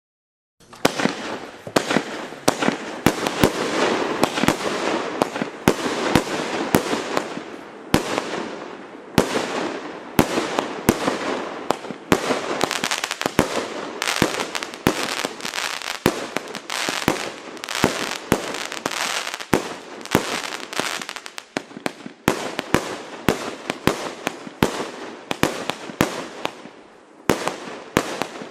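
A 200-shot, 30 mm (1.2-inch) compound fireworks cake firing: shot after shot in quick succession, several sharp reports a second, starting about half a second in.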